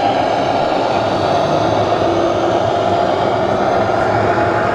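Speaker of a 1:14 scale RC Scania truck's electronic sound module playing a steady diesel engine drone as the truck drives slowly.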